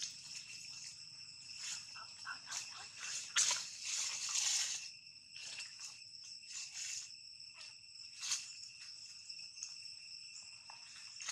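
A steady, high-pitched insect chorus, with the crackle and rustle of dry leaf litter as young macaques scuffle in it. The rustling is loudest from about three and a half to five seconds in.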